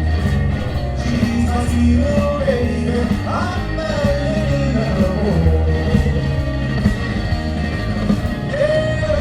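Live blues and R&B band playing a rock-and-roll style number with a steady bass and drum beat, a singer's voice over it.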